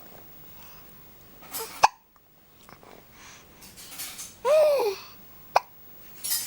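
A six-month-old baby hiccuping: a short sharp hiccup about two seconds in and another a little before the end, with a brief high voiced squeak between them that rises and falls in pitch.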